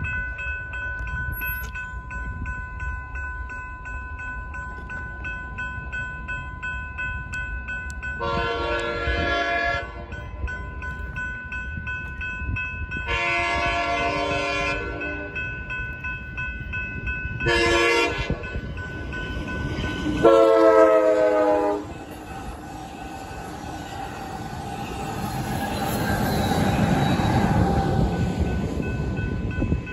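Amtrak San Joaquin passenger train's horn blowing the grade-crossing signal of long, long, short, long over a steadily ringing crossing bell. The pitch drops during the last long blast, and then the train's rumble and wheel noise swell as it runs through the crossing.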